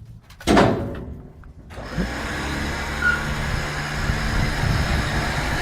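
A winch starts about two seconds in and runs steadily, hauling the car up the loading ramp onto the truck; a short knock comes just before it.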